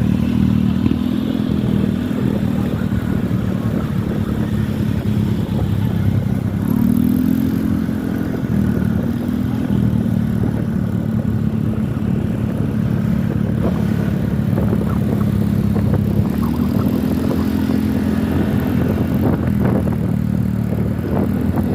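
Bus engine running with a steady low hum, briefly revved higher a few times.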